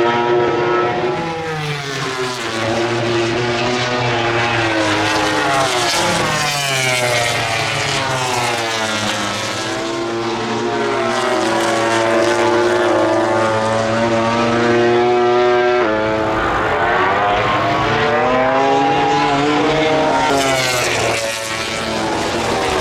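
MotoGP race bikes' four-cylinder engines at high revs as several bikes pass in turn, the engine pitch sweeping up and down repeatedly with gear changes and pass-bys, with a sudden change in pitch about two thirds of the way through.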